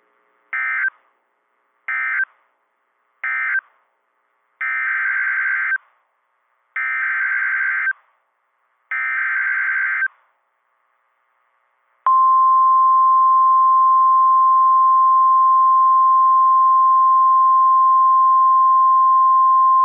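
NOAA Weather Radio SAME alert signalling. First come three short buzzy data bursts: the end-of-message code closing the previous warning. Then three longer data bursts: the header of a new severe thunderstorm warning. Then the steady 1050 Hz warning alarm tone begins about twelve seconds in.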